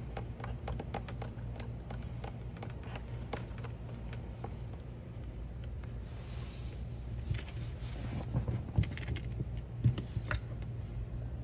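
A hand tool clicking quickly as screws are driven into the car's dash, over a steady low hum. About six seconds in there is a brief rustle, followed by a few knocks.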